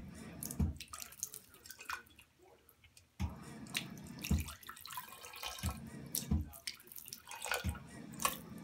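Water from a motion-sensing bathroom faucet running and splashing into the sink as a cat drinks from the stream. It starts suddenly, cuts out about two and a half seconds in, and comes on again suddenly just after three seconds, with occasional dull knocks in the splashing.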